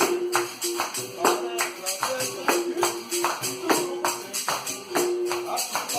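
Capoeira music: a pandeiro's jingles struck in a steady, repeating rhythm, with a melody of short held notes recurring over it.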